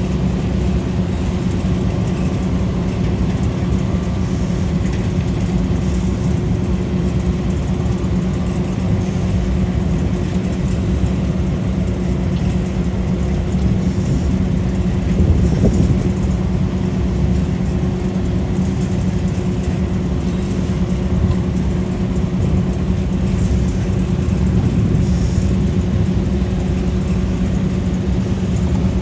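Machine engines running steadily at a constant speed: a Vermeer CTX160 mini skid steer working alongside a Vermeer BC1500 brush chipper. The sound swells briefly about halfway through.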